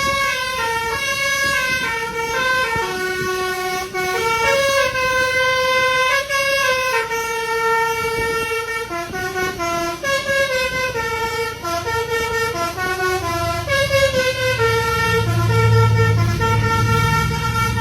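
Indonesian bus 'telolet' musical air horn playing a tune: a string of held and stepping horn notes that runs on without a break. A low rumble swells up under it near the end.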